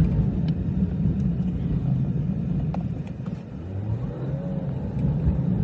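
Car running: a low, steady rumble.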